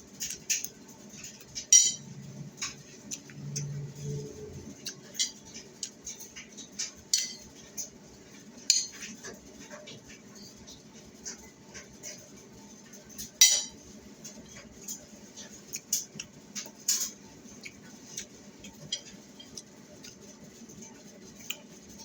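Cutlery clinking against a plate in scattered sharp taps, a few louder than the rest, with soft eating sounds in between.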